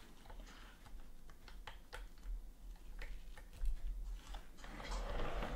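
Scattered small clicks and taps of statue parts being handled and pressed into their keyholes on a collectible figure statue, with a short rustle near the end.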